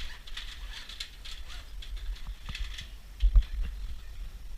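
Scattered light mechanical clicks and ticks over a steady low rumble, with a couple of louder low thumps about three seconds in.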